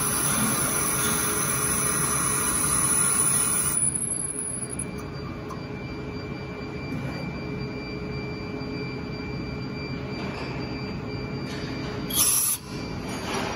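Small gang-tool CNC lathe running and turning a part, with a steady high-pitched whine that fades away about four seconds in, leaving the machine's steady running tones. A short loud noise comes about twelve seconds in.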